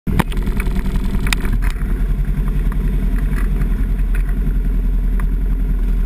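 ATV engine running at low trail speed close to the microphone, a steady low drone with a fast pulse. A few sharp clicks and rattles come in the first two seconds.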